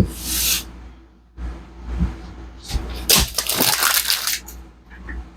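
A cardboard shipping box and its packing being handled: a short rustle at the start, a knock about two seconds in, then a longer crinkling, rasping stretch with a couple of knocks.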